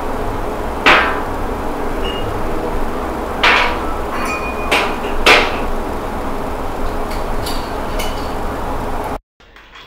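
Glassware knocking and clinking as glasses and a bottle are handled on a counter, with three sharp knocks about a second, three and a half and five seconds in and lighter clicks later. Under it runs a steady loud background hum that cuts off abruptly near the end.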